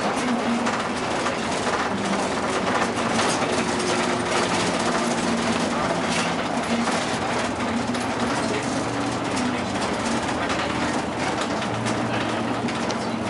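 Interior of a bus on the move: the engine running with a low steady drone while the cabin rattles and clicks continually over the road surface.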